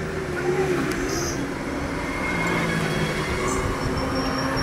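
Steady street-traffic noise from passing engines, with a couple of light metallic clinks of hand tools.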